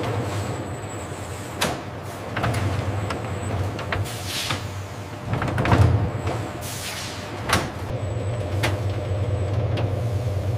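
Factory machinery running with a steady low hum, broken by several sharp clanks and a few short hissing sweeps around the middle.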